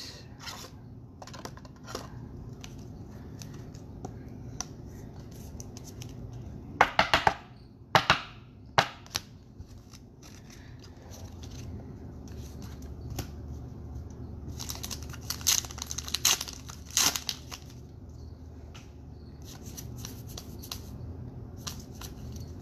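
Trading card packs being handled: foil wrappers crinkling and tearing, and cards rustling and clicking against each other. There are louder rips about seven to nine seconds in and again about fifteen to seventeen seconds in.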